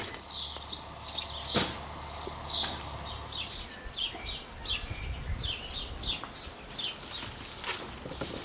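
Small birds chirping in a quick series of short, high calls. A sharp click comes about one and a half seconds in and another near the end.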